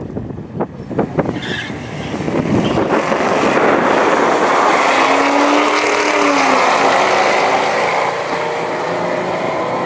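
Two drag cars, a Mitsubishi Lancer Evolution X with its turbocharged four-cylinder on E85 and a Ford Mustang, revving at the starting line. About three seconds in they launch and run at full throttle, engine pitch rising through the gears as they pull away down the quarter mile.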